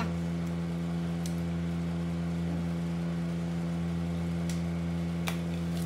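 Steady low electrical hum from a room appliance, with a few short clicks about halfway through and near the end.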